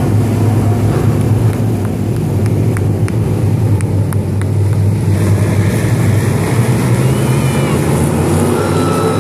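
Several dirt-track Crate Sportsman race cars' engines running together in a steady loud drone as the field circles the clay oval. Near the end one engine climbs to a high, held pitch.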